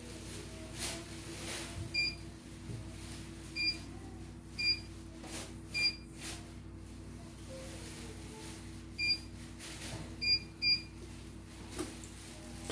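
CNY E900 computerized embroidery machine's control-panel keys beeping as settings are selected on its screen: seven short, high electronic beeps at irregular intervals, two close together near the end. A steady low hum runs underneath.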